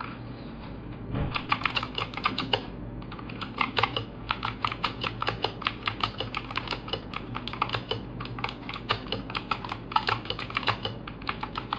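Typing on a Gamdias Hermes E2 mechanical keyboard with blue switches: fast, clicky keystrokes. They start about a second in, pause briefly near three seconds, then run on steadily.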